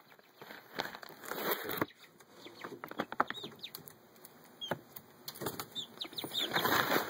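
Young backyard hens flapping their wings and scrabbling on a perch in a couple of bursts, about a second in and again near the end, with sharp clicks and a few short, high chirps in between.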